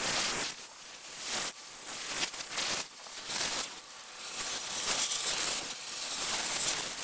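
A sandblaster's nozzle blasting sand against the sheet-metal truck cab, a hiss that comes in several bursts of a second or two with short dips between.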